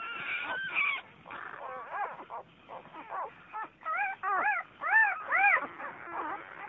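Vizsla puppies whining and squealing: a string of short high cries that each rise and fall in pitch, some overlapping, loudest about four to five and a half seconds in.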